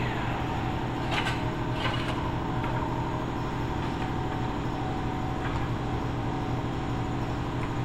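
Steady mechanical hum of shop machinery, with a few faint light clicks about one and two seconds in.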